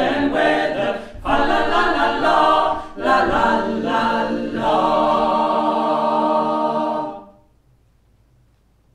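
Small mixed choir of men's and women's voices singing an Advent song unaccompanied, ending on a long held final chord that stops about seven seconds in.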